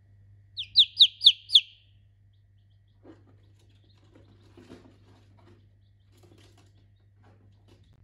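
Baby chicken chick peeping: five loud, quick peeps in a row, each falling in pitch, about four a second, within the first two seconds. After them only faint soft rustles.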